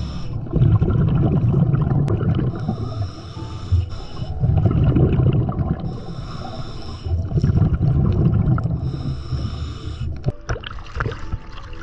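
Scuba diver breathing through a regulator underwater, heard from a mask-mounted camera: a hissing inhale alternates with the low rumble of exhaled bubbles, about three breaths in a steady rhythm. Near the end come a few sharp clicks.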